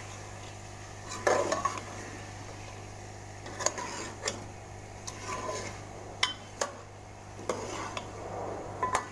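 Metal spoon stirring beef and potatoes in a metal cooking pot, scraping the pot and striking its rim with several sharp clinks at irregular intervals, as the curry is fried in its masala before water goes in.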